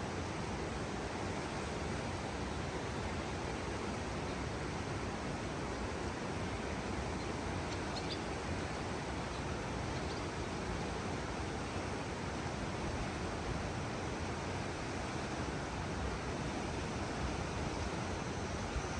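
Steady, even rush of flowing water, with a faint short high chirp about eight seconds in.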